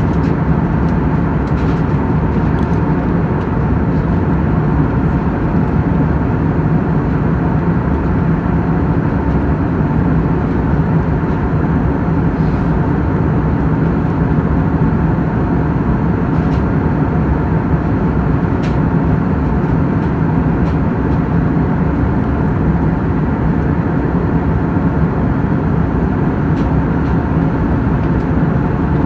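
Airliner cabin noise: a loud, steady rush of engines and airflow with a constant low hum, and a few faint clicks or rattles now and then.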